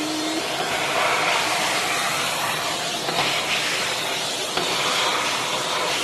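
Shop vac running steadily, a rushing hiss of motor and suction as it vacuums up dirt and dust.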